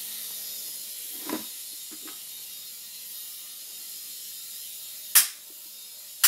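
Toy remote-control helicopter's small electric motor and rotor whirring steadily in flight, a high, hiss-like whir. Two sharp clicks near the end.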